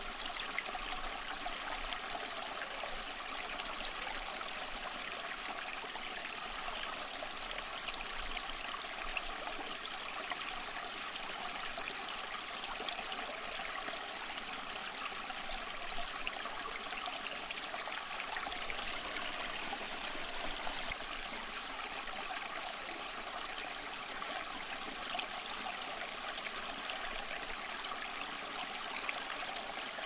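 Small pump-fed tabletop cascade fountain running: water spilling from spouts down stepped tiers into shallow pools, a steady trickling splash with small drips throughout.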